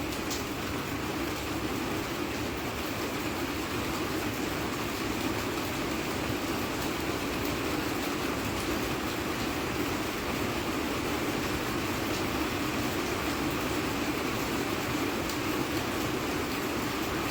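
Steady rain falling, an even rushing hiss with a few faint ticks of single drops.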